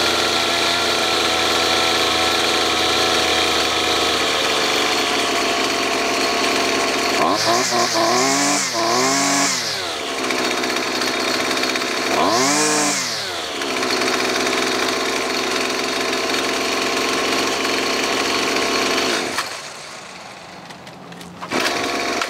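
Gas string trimmer engine idling steadily, then revved three times: two quick blips one after the other and a third a few seconds later, each rising and falling back to idle. Near the end its sound falls away sharply for about two seconds, then comes back up.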